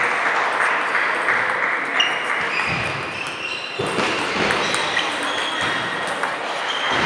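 Table tennis rally: sharp clicks of the ball off bats and table, over the steady din of a busy sports hall with other tables in play and voices in the background.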